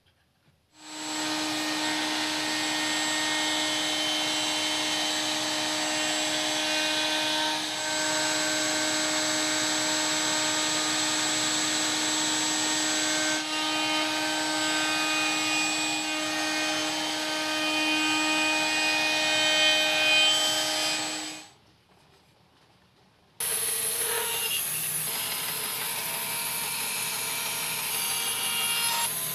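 Electric power tool running steadily at a constant pitch for about twenty seconds, then stopping. After a brief pause a second, higher-pitched machine sound starts and runs on.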